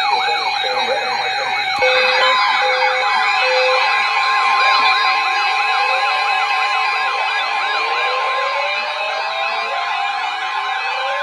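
Weather alert radio alarms sounding together: fast, repeating warbling siren-like sweeps layered over steady alert tones. Short, evenly spaced beeps come in a couple of seconds in, and more warbling and rising glides build up after that.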